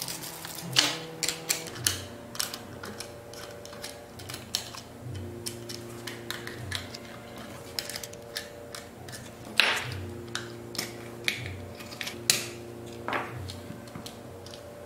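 Irregular clicks and taps of plastic and small metal parts being handled as the plastic wheel guard of an electric chain saw sharpener is taken apart, with a few sharper knocks, over steady background music.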